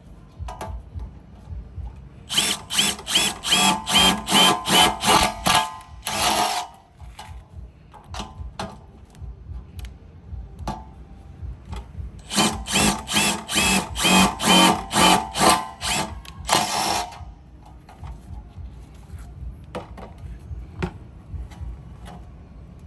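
Makita DTD173 18V cordless impact driver run in two spells of short pulses, about three a second, each spell ending in a brief unbroken burst.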